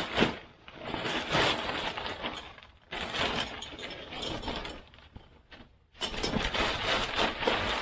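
Irregular clattering, knocking and scraping of a shop dust collector being opened and emptied of wood shavings, in uneven bursts with short pauses.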